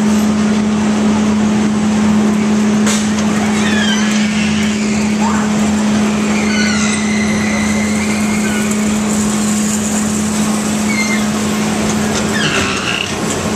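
Carnival ride machinery running with a steady, loud low hum as the Rock-N-Roll ride's tubs turn, with scattered high-pitched voices calling out now and then.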